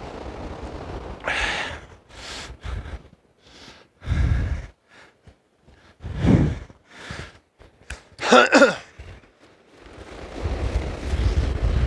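A person's short breathy vocal sounds, a few separate puffs with the loudest and most voiced one about eight seconds in, then wind buffeting the microphone toward the end.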